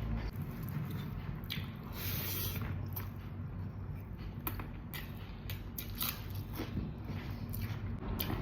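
Close-up mukbang eating sounds of chicken and rice: wet chewing and biting, with irregular smacks and clicks and a short louder patch about two seconds in.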